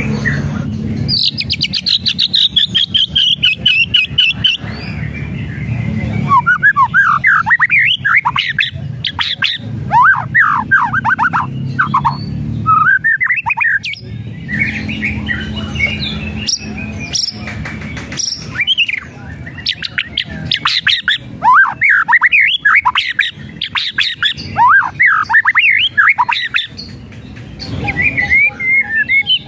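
White-rumped shama singing. About a second in comes a fast, harsh rattling call that falls slightly in pitch. It is followed by repeated bursts of rapid down-slurred whistles mixed with sharp clicks. The harsh rattles are the shama's 'kretekan', typical of a bird in a heated, combative mood.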